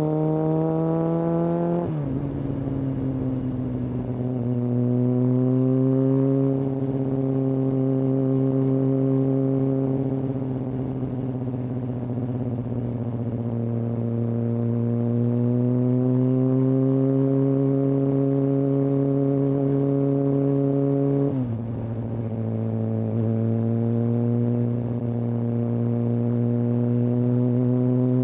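Kawasaki ZX-6R's inline-four running through a Hindle aftermarket exhaust under way. The engine note climbs at the start, drops sharply about two seconds in and again near the three-quarter mark, and otherwise holds a steady cruising pitch with gentle rises and falls.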